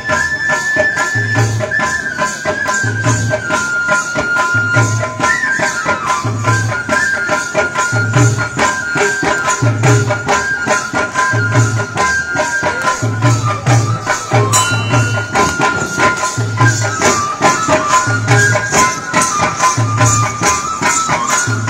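Folk dance music: deep drum strokes beating a steady, slow cycle, fast jingle-like rattling on every beat, and a high melody of held notes that steps and slides between pitches.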